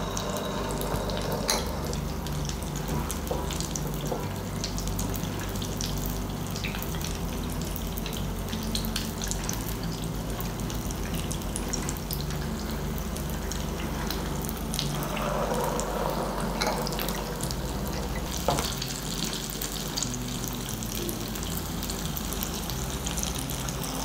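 Batter-coated suzhiyam (sweet tapioca-filled dumplings) deep-frying in hot oil: a steady crackling sizzle with many scattered small pops.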